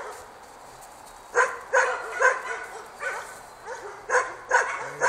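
Jämthund (Swedish elkhound) barking, a run of about seven sharp barks starting about a second and a half in.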